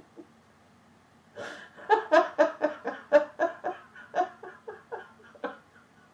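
A person laughing hard in a rapid string of 'ha' bursts, about four a second, starting about a second and a half in and trailing off near the end.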